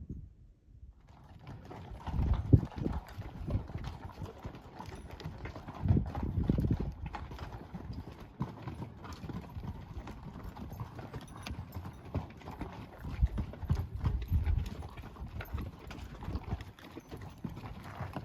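Hooves of a passing mule train clopping along the trail in an uneven walking rhythm, with louder clusters of hoofbeats a couple of seconds in and again around six seconds.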